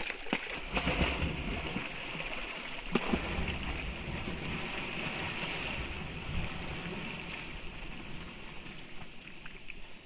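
A dog bounding into a shallow pond and splashing through the water, then swimming, with loud splashes in the first three seconds, a sharp one about three seconds in, easing toward the end.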